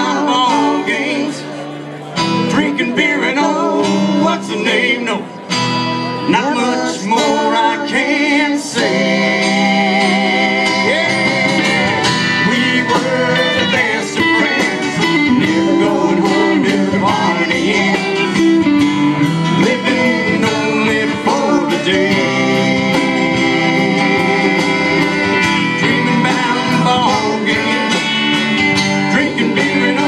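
Live country band playing loud through a PA system: acoustic guitars and a drum kit, with singing.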